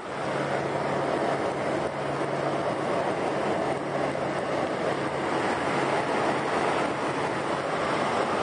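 Airliner cabin noise heard from a window seat: the steady rush of engines and airflow. A low, even hum sits under it and fades after about five seconds.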